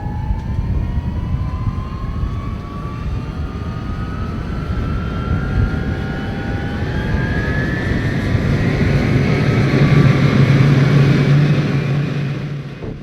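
English Electric Lightning T5's twin Rolls-Royce Avon turbojets running, a whine climbing steadily in pitch over a heavy rumble as the engines wind up. The rumble builds to its loudest near the end, then drops away.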